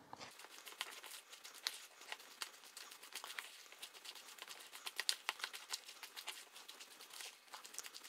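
Sliced onions and thick gram-flour batter being mixed in a glass bowl: a faint, irregular run of sticky crackling and clicking, several per second.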